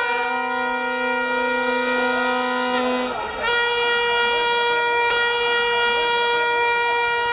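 Spectators' horns blowing long, steady blasts: a low horn and a higher one sound together for about three seconds. After a brief break, one higher horn is held for about five seconds, running on past the end.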